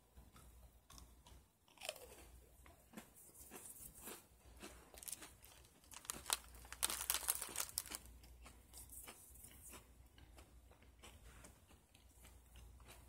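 Close-up chewing and crunching of a Firework Oreo, a chocolate sandwich cookie with popping candy in the filling. A run of small crackles and crunches is loudest a little past the middle.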